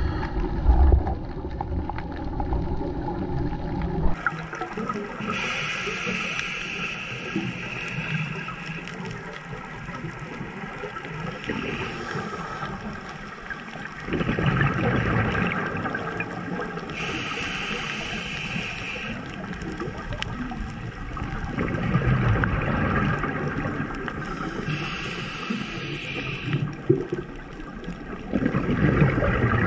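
Scuba regulator breathing heard underwater: a hiss on each breath alternating with the rush and gurgle of exhaled bubbles, the cycle repeating every several seconds. A steady droning hum lies under it for the first four seconds, then stops.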